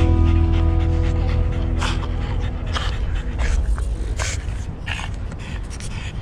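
A French bulldog panting close to the microphone in short, uneven breaths, over a strummed guitar chord that rings out and fades during the first few seconds.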